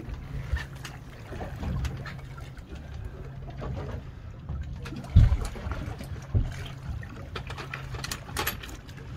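Boat engine running at idle, a steady low hum, with water splashing and sloshing against the hull where a hooked tuna is held alongside. A few dull thumps, the loudest about five seconds in.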